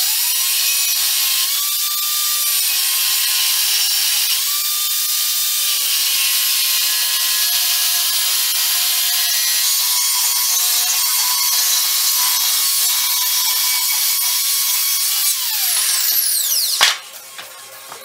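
Graphite angle grinder with a cut-off disc cutting through 15 mm thick steel plate: a steady, high grinding hiss over the motor's whine, which wavers with the load. About fifteen seconds in the grinder shuts off and its whine falls away as the disc spins down, followed by a single sharp knock.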